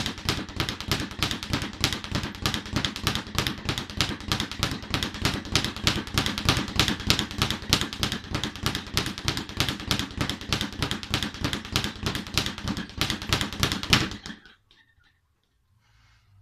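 Speed bag being punched in a fast, steady rhythm, the bag rattling against its wooden rebound board; it stops about fourteen seconds in.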